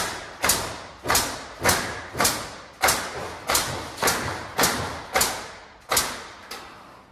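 Pallet-stacking machinery knocking heavily and repeatedly, about a dozen knocks at a little under two a second, each ringing out briefly; the knocking stops shortly before the end.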